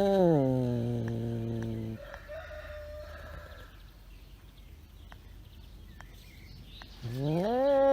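An animal's long, drawn-out call that rises and then falls in pitch and breaks off about two seconds in. A second call of the same kind begins about seven seconds in, with a fainter, thinner sound and a few soft clicks in between.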